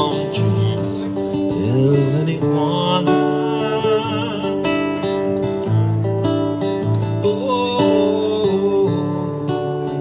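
Acoustic guitar music played live: strummed chords under melodic lines, with notes that bend and waver.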